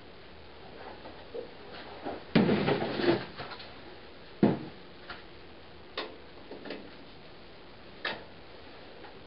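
Scattered clicks and knocks of hands working on the tractor. There is a denser clatter about two and a half seconds in and a sharp knock about two seconds after it. The engine is not running.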